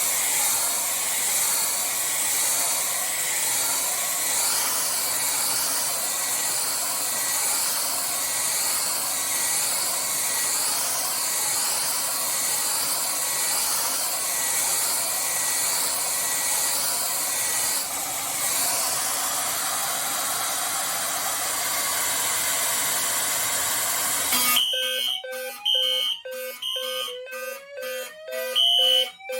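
A hair dryer blowing hot air steadily onto a heat detector to trip it. About 25 seconds in the dryer cuts off and the fire alarm goes off: the detector has tripped, and sounders start with a low pulsing tone, short higher beeps and rising sweeping tones.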